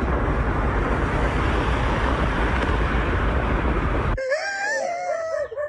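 Loud steady roar of a fire fed by LP gas escaping from a tapped pipeline. It cuts off abruptly about four seconds in, and a person starts wailing in a high voice that wavers in pitch.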